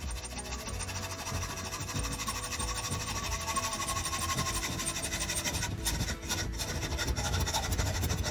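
Hacksaw cutting through a steel bolt held in a vise, with repeated rasping strokes of the blade on the metal. Background music plays underneath.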